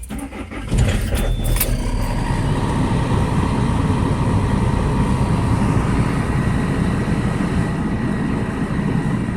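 Citroën Xsara Picasso 2.0 HDi four-cylinder diesel engine started on a freezing cold morning: it turns over less than a second in, then runs steadily to the end, with a few sharp clicks in the first second of running.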